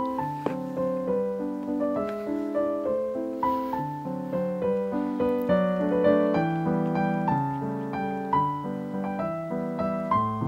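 Background piano music: a melody of single notes over lower chords.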